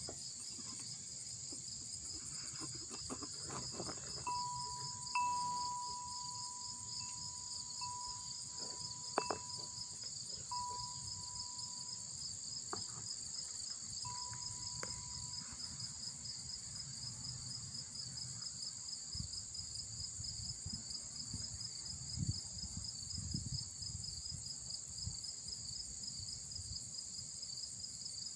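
Steady chorus of crickets chirping, a fast pulsing trill in two high bands that never lets up. Partway through, a thin steady tone comes and goes for about ten seconds, and there are a few faint knocks.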